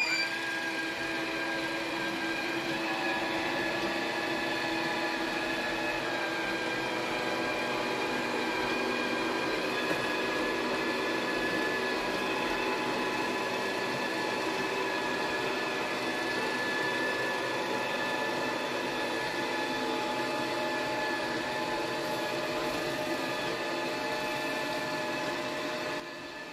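Robot vacuum cleaner starting up and running as it drives across a laminate floor: a steady whir with several fixed whining tones. It starts suddenly and turns quieter near the end.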